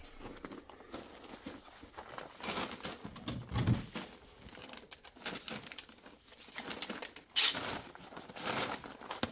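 Irregular rustling and crinkling handling noise with scattered knocks, and one sharper, louder knock about seven and a half seconds in.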